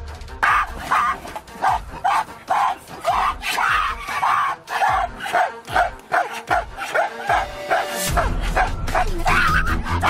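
Background music under a rapid series of short barking animal calls, about two to three a second.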